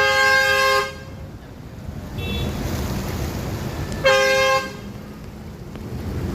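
Vehicle horns honking in traffic: a long honk at the start, a faint one about two seconds in, and a short loud honk about four seconds in, over steady engine and street noise.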